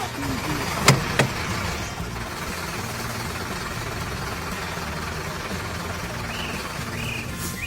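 Heavy construction-machine engine running steadily, with two sharp knocks a little after a second in.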